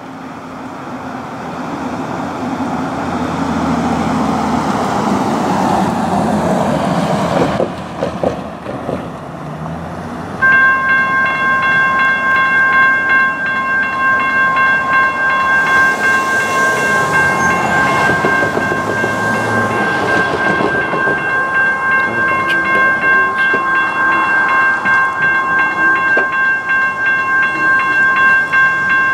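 A CSX freight train approaching, its rumble growing louder. About ten seconds in, a railroad grade-crossing warning bell starts ringing and keeps ringing steadily, warning of the train's approach as the crossing gates come down.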